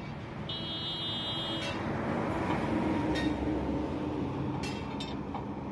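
Roadside traffic rumble with a vehicle horn tooting for about a second, half a second in; the rumble swells as a vehicle passes, with a few sharp clacks.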